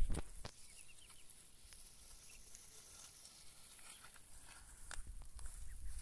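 Ducklings foraging in grass: a few faint short peeps, with soft rustling and pecking in the grass that grows busier near the end. A thump at the very start is the loudest sound.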